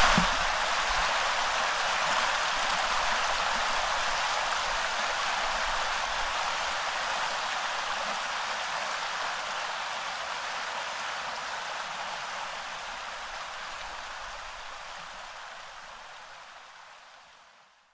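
Shallow river rippling over a stony bed: a steady rushing of water that slowly fades away and stops near the end.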